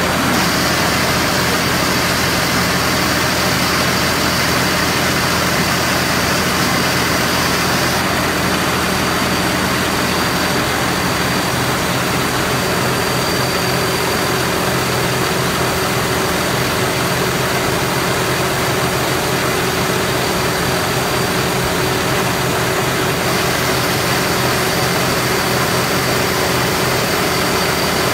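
Diao Tornong 4.0 combine harvester running steadily, its engine and machinery making a constant loud drone with a thin high whine held throughout.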